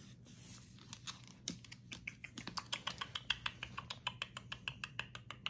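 A blue and gold macaw clambering about in a mesh laundry basket of clothes, making a run of light clicks and taps that quickens about two seconds in.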